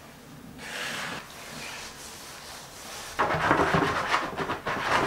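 Light handling noises, then a sponge scrubbing the plastic around a toilet seat hinge: a rough, scratchy rubbing that starts about three seconds in and stops suddenly near the end.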